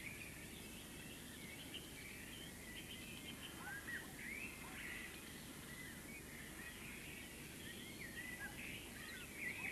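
Small birds chirping and twittering in quick, scattered calls over a steady low background rumble.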